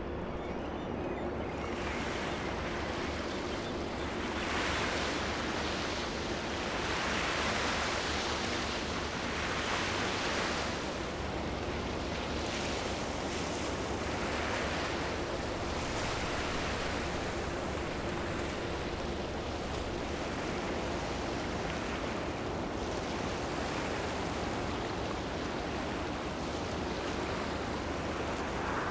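Harbour water washing and splashing in surges every few seconds, mixed with wind, over a low steady hum.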